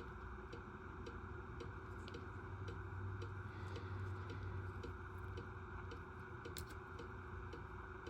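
Faint, regular ticking, a few ticks a second, over a steady low hum, with an occasional sharper click.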